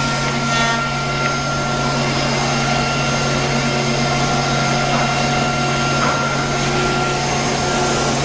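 ATC CNC router spindle milling wooden door parts: a steady machine drone with several constant whining tones over a hiss of cutting noise.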